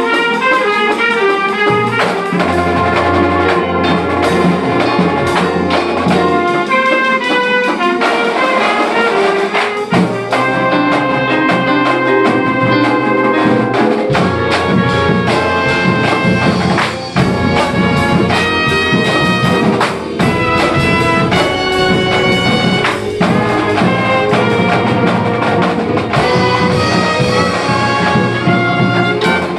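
A full student band playing a brassy piece together: trumpets and sousaphones lead, with alto saxophones, flutes and an electric keyboard, loud and steady throughout.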